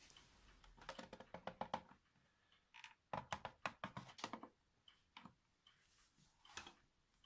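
Faint clicks, taps and light rattles in two quick clusters, then a few single knocks, with the upright vacuum's motor off.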